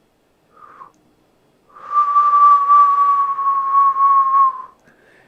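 A person whistling one long steady note for about three seconds, sagging slightly in pitch just before it stops, after a short faint chirp.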